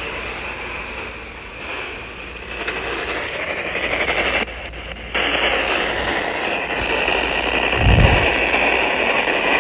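Weather radio receiver hissing with static from a weak, noisy broadcast signal, with any voice buried in the noise. The static cuts out for about half a second near the middle, then returns slightly louder.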